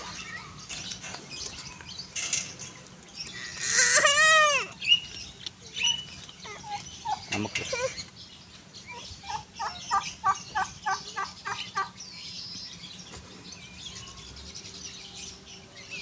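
Penned guinea fowl and turkeys calling: a rapid string of short clucking notes, about four a second, for a couple of seconds past the middle. There is also one loud drawn-out cry that rises and falls about four seconds in.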